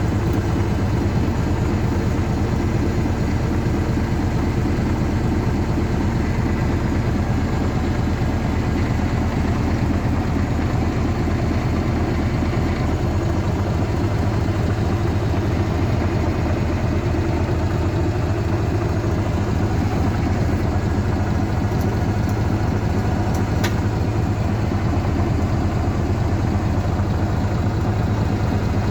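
Tractor engine, a Bolinder-Munktell BM 350, running steadily at an even speed with a rapid, regular firing beat.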